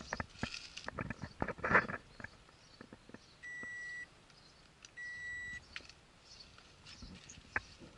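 Two identical steady high electronic beeps, each just over half a second and about a second apart, from a Toyota Harrier Hybrid's dashboard as its push-button power switch is pressed to start the hybrid system.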